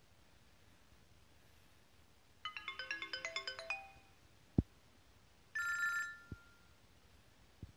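BlackBerry Torch 9800 phone playing its electronic tones: a quick run of about a dozen melodic notes lasting under two seconds, then a sharp click, and a short bright chime about a second later, with a couple of fainter clicks after it.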